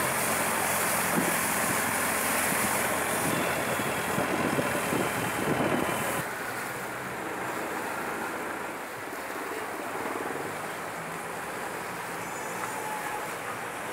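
Long-tail boat's engine running while under way, with a wash of wind and water noise. The sound drops to a quieter, steadier run about six seconds in.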